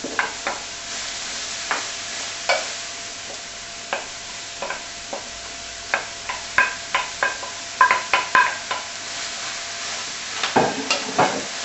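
Chopped vegetables sizzling as they go into a hot frying pan and are stirred, with a steady hiss and repeated sharp clicks and knocks of a wooden spoon against the plate and pan.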